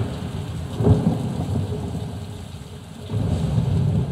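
Rain-and-thunderstorm sound effects played back through an IKEA Symfonisk Bookshelf speaker: steady rain over a deep low rumble, with a sharp thunder crack about a second in, then fading before swelling again near the end.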